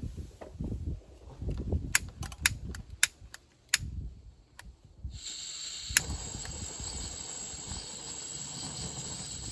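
A handful of sharp clicks from a long utility lighter's igniter. About five seconds in, a portable gas camp stove's burner starts hissing steadily, with one more click a second later.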